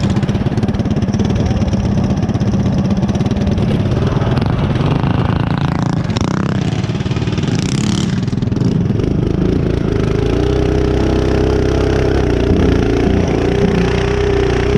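Mini bike's small single-cylinder engine running, uneven at lower revs for the first several seconds, then held at a steady, higher speed from about ten seconds in as the bike rides along. A brief rushing noise comes about seven to eight seconds in.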